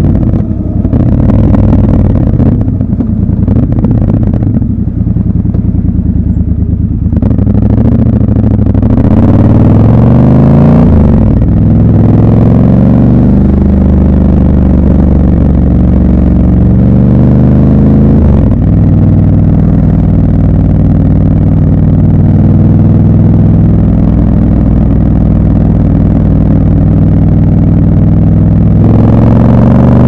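Triumph Scrambler 1200 XC's 1200 cc parallel-twin engine on the move: uneven and low for the first several seconds, then pulling up in pitch through the gears with short breaks for shifts about eleven and eighteen seconds in, holding steady at cruise, and picking up again near the end.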